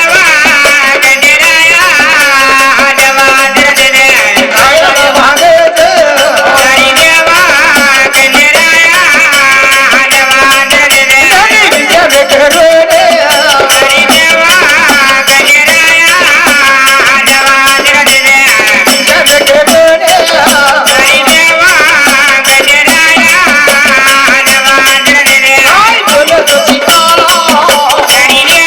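Traditional Marathi folk devotional music: a melody sung in a wavering voice over steady jingling, rattling percussion that never stops.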